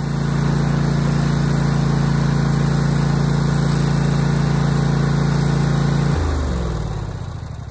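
Exmark Quest S-Series zero-turn mower's Exmark engine running steadily at full throttle to circulate freshly added oil. It is then switched off about six seconds in, and its pitch drops and fades as it spins down.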